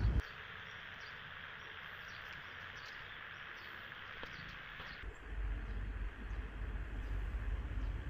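Outdoor ambience with a steady hiss of insects and faint high ticks. About five seconds in, this cuts to a louder low rumbling noise.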